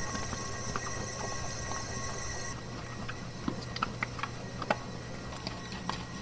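Spiral dough mixer running as its hook kneads sourdough dough: a steady motor hum with irregular small clicks and ticks. A high hiss cuts out about two and a half seconds in.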